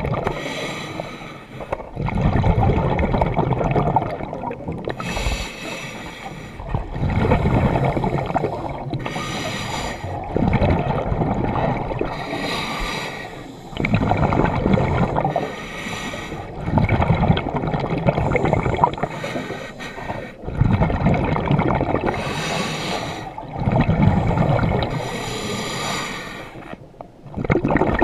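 Scuba diver breathing through a regulator underwater: a hiss on each inhale alternating with a gurgling rush of exhaled bubbles, about one breath every three to four seconds.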